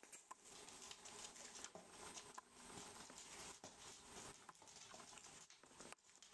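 Faint patter and scuffling of a rough collie puppy's paws and claws on a wooden floor as it tussles with socked feet, a string of small clicks and scuffs.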